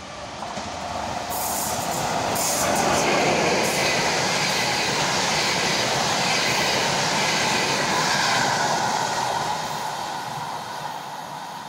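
ChS4 electric locomotive and Intercity+ passenger coaches passing at speed: a rushing wheel-on-rail noise that swells as the train arrives and runs loud while the coaches go by. It fades in the last few seconds as the train moves away, with a few sharp clacks in the first seconds.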